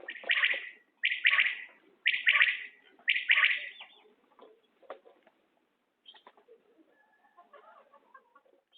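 Common quail singing: four loud calls about a second apart, each a quick run of notes, followed by only faint scattered sounds for the rest of the time.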